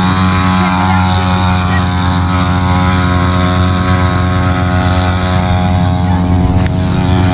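Motorcycle engine running at a steady idle close by, one even note held without revving.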